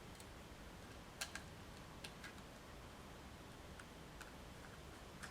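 Faint, scattered light clicks and ticks of small screws being fitted into a laptop solid-state drive with a Torx screwdriver, about half a dozen, the sharpest about a second in.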